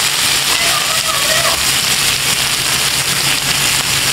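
Chicken pieces sizzling in ghee on a hot tawa, a large flat iron griddle, giving a steady hiss.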